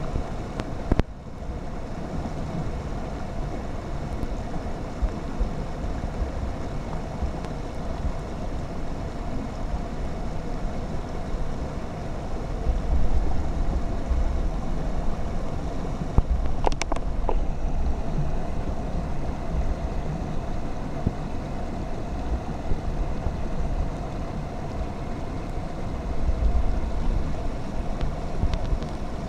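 Creek water rushing steadily, with wind gusting on the microphone.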